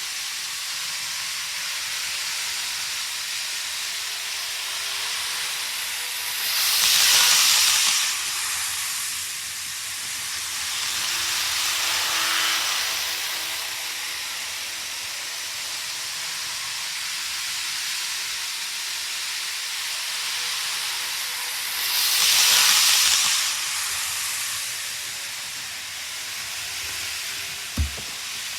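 N-gauge model trains running on the track: a steady rushing rattle of small wheels on rail that swells as a train passes close, loudest twice, with one sharp click near the end.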